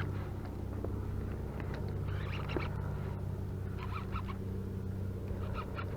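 Steady low engine hum, with a few faint short calls above it.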